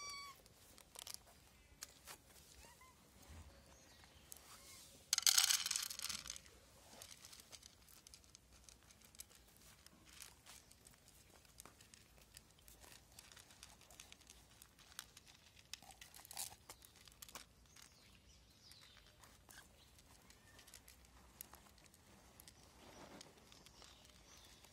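A cat's meow ends right at the start. About five seconds in, dry cat food rustles and pours onto a plate for about a second, the loudest sound; after that the cat eats the kibble, with faint scattered crunching clicks.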